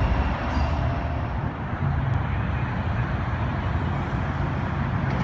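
Steady low rumble of a light rail train and road traffic beside the tracks, with a low hum setting in about two seconds in.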